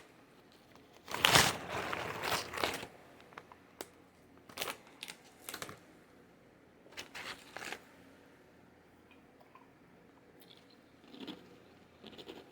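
A Doritos chip bag crinkling and chips crunching, in several short bursts with the loudest cluster about a second in.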